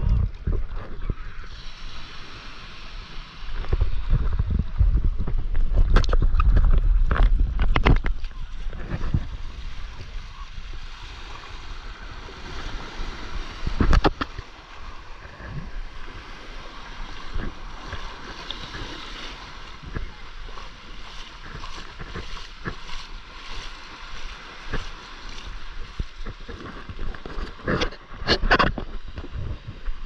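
Shallow seawater sloshing and small waves washing in at the shore, with wind buffeting the microphone in low rumbling gusts, strongest about four to eight seconds in. There are a few sharp splashes, the loudest about fourteen seconds in and near the end.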